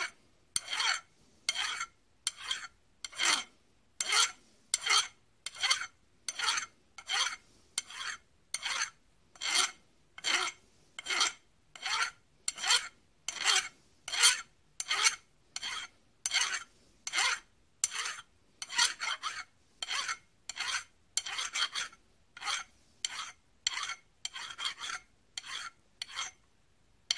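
Hand file rasping across the end of a small brass fuel-valve part to remove a burr: short, even strokes, about one and a half to two a second.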